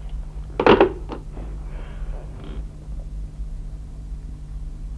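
A single brief knock about two-thirds of a second in, followed by a faint tick and soft rustling, over a steady low mains hum.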